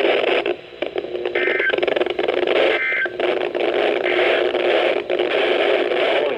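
Loud static hiss from a weather radio's speaker, with two brief faint tones a little over a second apart, cutting off suddenly at the end. It is the NOAA Weather Radio station's signal breaking up into noise, a transmitter misbehaving rather than speech.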